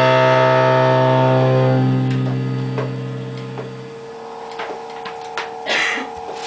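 A rock band's electric guitar chord held and ringing out through the amplifier, dying away over the first four seconds. Then scattered clicks and knocks, with a thin steady tone hanging on and a brief hiss near the end.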